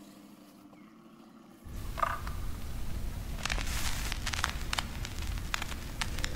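Faint end of background music. Then, from under two seconds in, live outdoor sound: a low rumble with scattered crackling and scraping of dry leaves and stones as a radio-controlled rock crawler and its operator move over them on the slope.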